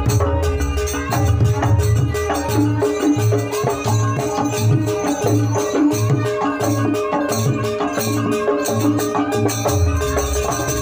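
Jaranan dance music from a gamelan-style percussion ensemble: a steady low drum beat a little over once a second under held ringing tones, with quick rattling strokes above.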